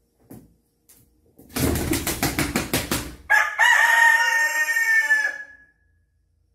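A rooster crows once, a long held cock-a-doodle-doo that begins about halfway through and trails off. Just before it comes a second-long run of rapid short beats.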